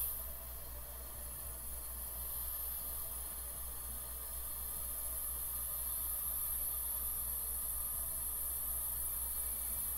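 Tecumseh AJM hermetic refrigeration compressor running steadily: a low, even hum with a constant hiss over it.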